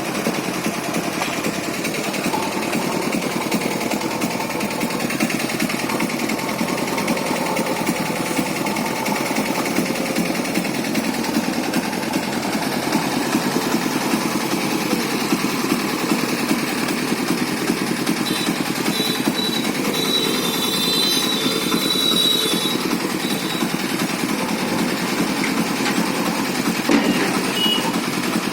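JCB backhoe loader's diesel engine running steadily with a rough, even clatter.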